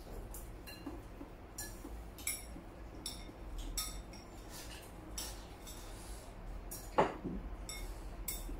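Chopsticks clinking and tapping against porcelain bowls during a meal, a scatter of light irregular clicks, with one louder short sound about seven seconds in.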